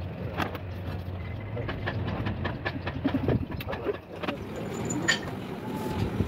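Scattered light metal clicks and knocks from handling pistons at the cylinder bores of a Hino truck engine block, over a steady low rumble.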